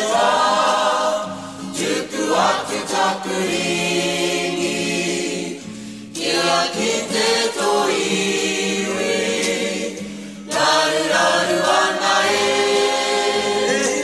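Background music: a choir singing in long phrases, with short breaths between phrases about six and ten seconds in.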